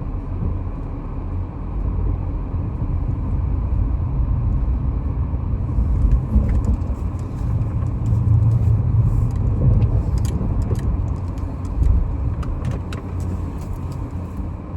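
Car moving slowly on an icy, snowy road, heard from inside the cabin: a steady low rumble of engine and tyres. From about six seconds in there are scattered light clicks and rattles, like keys jangling.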